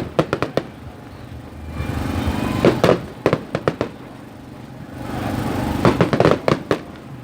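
Fireworks going off in a repeating pattern: a rushing noise builds, then a quick cluster of sharp cracks and bangs. This happens three times, about every three seconds.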